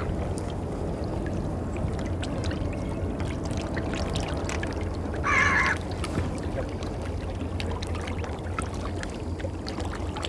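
Water rushing and splashing along a moving boat's hull over a steady low rumble, with a gull calling once about five seconds in.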